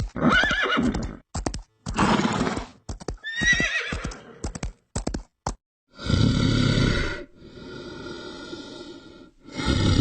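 Horse whinnying several times in wavering calls, with short sharp knocks between them. About halfway through this gives way to a loud breathy rushing noise that eases off and then swells again near the end.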